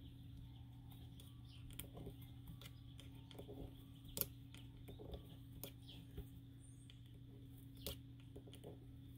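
Faint, scattered clicks and taps from a metal loom pick and the hands working yarn loops off the plastic pegs of a round knitting loom, over a steady low hum. The loudest click comes about four seconds in, and another comes near the end.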